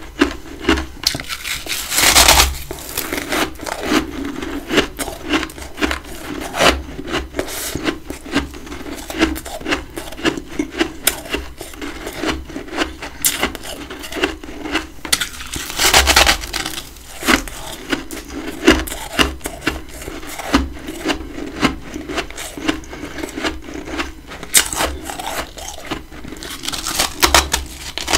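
Chewing and crunching big chunks of freezer frost: a dense run of crisp crackles, with louder bites about two seconds in, midway and near the end.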